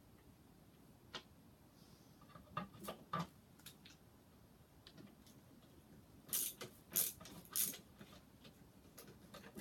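Short bursts of ratcheting clicks from a hand tool being worked during furniture assembly, with a few scattered knocks and clicks in the first half. The loudest bursts come as four quick runs a little past the middle.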